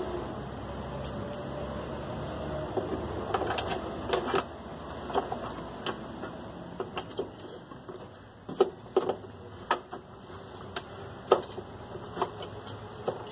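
Irregular clicks and taps of plastic and metal parts as a washing machine's brake actuator and mechanism are fitted back together by hand, growing more frequent after the first few seconds.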